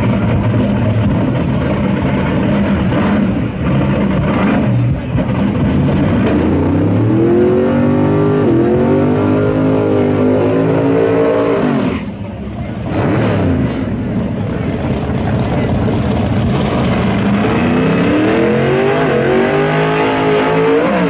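Drag-race vehicle engines running and revving, the engine pitch climbing steeply twice under acceleration, first from about seven seconds in and again from about seventeen seconds in, with a brief drop in the sound between the two.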